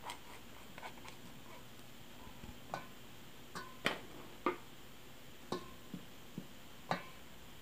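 Light taps and clinks of a wire-mesh flour sieve and a silicone spatula against a stainless steel mixing bowl while self-rising flour is sifted and spread: about ten scattered knocks, a few of them ringing briefly like metal.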